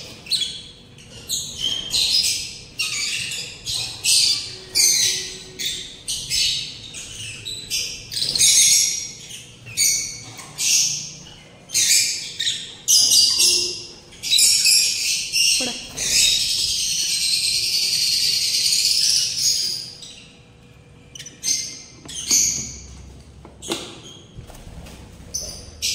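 Lovebirds chirping: a run of short, shrill chirps about one a second, then a longer unbroken stretch of calling in the middle.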